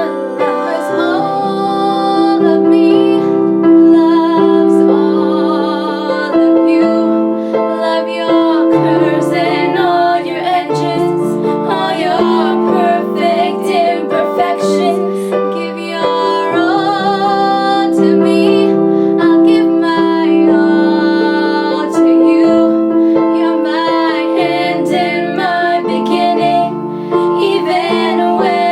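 A woman singing a pop song over piano accompaniment, with sustained chords and a sung melody with vibrato.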